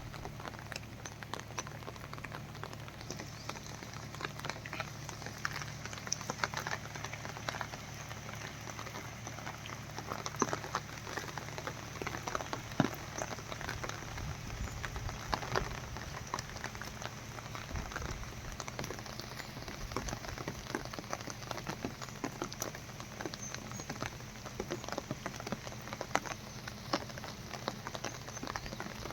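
Rain falling, with many irregular drop taps over a steady wash, and a faint steady low hum underneath.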